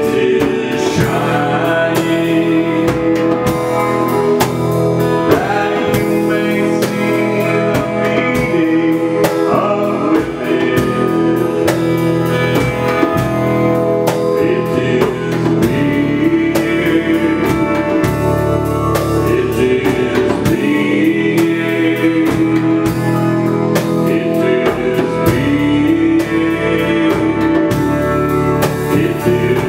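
A live band playing: electric guitar, djembe hand drums with cymbals, and keyboard, at a steady loud level.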